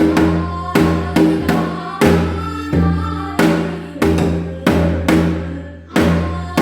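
Janggu, the Korean hourglass drum, playing a semachi jangdan pattern: a steady rhythm of sharp strokes, each followed by a deep ringing tone that fades.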